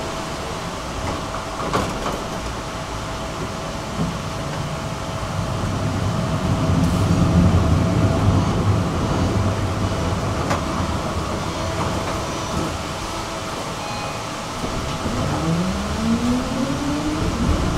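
Tram running along its track, with a steady low rumble of steel wheels on rail that swells for a few seconds midway, and a few sharp clicks. Near the end a whine from the electric traction motors rises in pitch as the tram speeds up.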